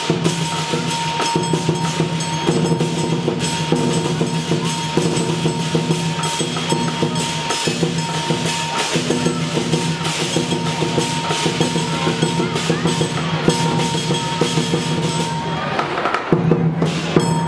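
Lion dance percussion: a large Chinese lion drum beaten continuously with dense strikes, backed by clashing cymbals and a ringing gong.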